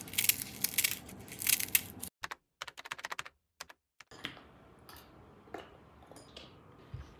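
Dry roasted seaweed (gim) being crumbled by hand: a run of crisp crackles and clicks that thins out after about two seconds, with a few scattered light clicks later.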